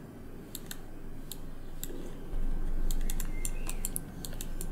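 Light, scattered clicking of a computer keyboard and mouse, about a dozen taps, over a low background hum that grows louder a little past halfway.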